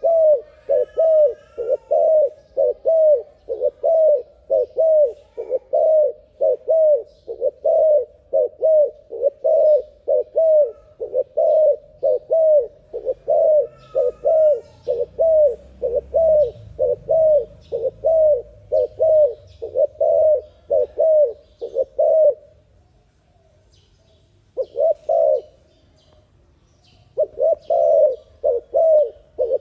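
A dove calling in a fast, unbroken run of short coos, about two a second. The run stops about two-thirds of the way through, a brief burst of coos follows a few seconds later, and the fast cooing resumes near the end. Faint chirps of small birds are heard behind it.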